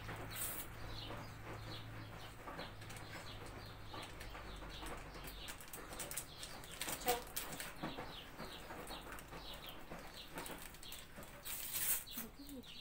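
Hands squeezing and mixing a soft, wet cookie dough in a bowl, a run of small squelches and clicks, with a paper sachet torn open over the bowl near the end.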